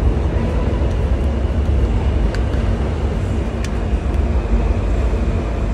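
Loud steady low rumble of a subway station, with a few faint clicks.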